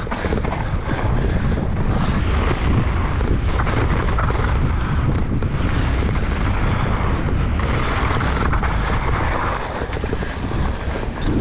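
Wind rushing over the microphone during a mountain-bike descent, over the steady noise of tyres on a damp dirt trail, with scattered light rattles and knocks from the bike.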